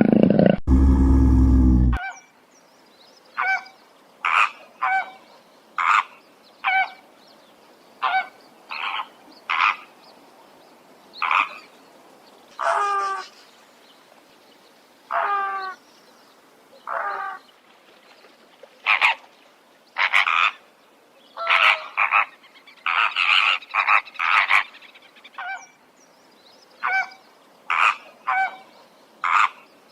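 A loud, deep animal roar ends abruptly about two seconds in. Then come short, nasal honking animal calls, singly or in quick pairs, with pauses of a second or so between them.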